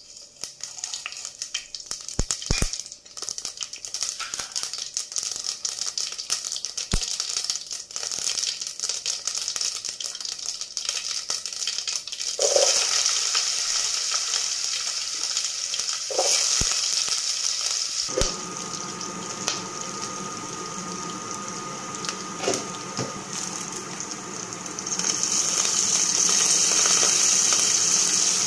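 Mustard, cumin and fenugreek seeds crackling and popping in hot oil. About twelve seconds in, chopped onions go into the oil and a steady sizzle takes over. A louder sizzle starts near the end, as curry leaves hit the oil.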